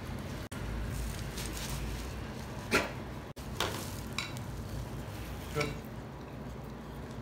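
An American Bully dog eating pasta, making wet chewing and lip-smacking sounds. A few sharp clicks and knocks come through, the loudest a little under three seconds in.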